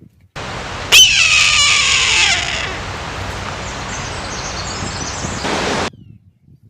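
Red-tailed hawk giving one loud, hoarse scream that falls in pitch, about a second in, over a steady recording hiss that starts and stops abruptly.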